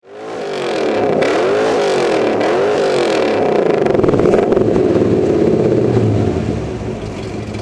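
V8 engine of a 1972 Buick Skylark GS being revved: the revs rise and fall twice, are held up for a few seconds, then drop back toward idle near the end.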